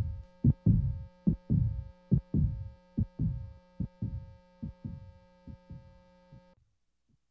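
Heartbeat-like double thumps, about one pair every 0.8 seconds, over a steady electronic hum. This is the closing of the soundtrack; it fades out and cuts off sharply about six and a half seconds in.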